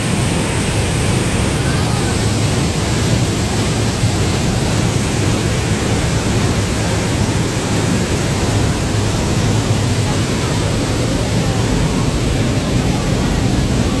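Waterfall close by, a steady loud rush of falling water with no letup.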